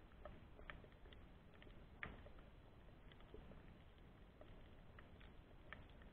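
Faint underwater ambience picked up by an underwater camera: a low rumbling hiss with scattered, irregular soft clicks and crackles, one or two a second, the sharpest about two seconds in.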